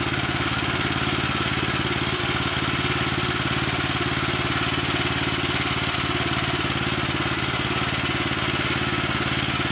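Small gasoline engine of a Woodland Mills HM122 portable bandsaw sawmill running at a steady speed.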